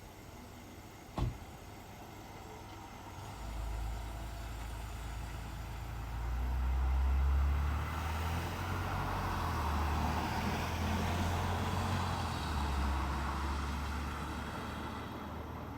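A motor vehicle passing: a low engine rumble and tyre hiss build from about three seconds in, are loudest around the middle, and ease off near the end. A single sharp click about a second in.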